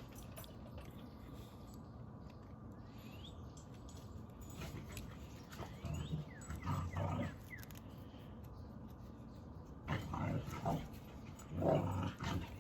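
Dog barking in two bouts, about five and ten seconds in, with short rising whines in between.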